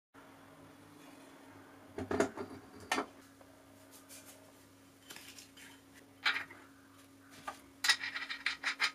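Metal clinks and knocks as an abrasive disc, its washer and the metal flange are handled and fitted onto an Einhell bench grinder's shaft. A quick run of small clicks near the end comes as the flange fastening is turned on.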